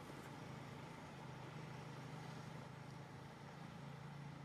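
Faint, steady low hum of a running engine, its pitch shifting slightly now and then.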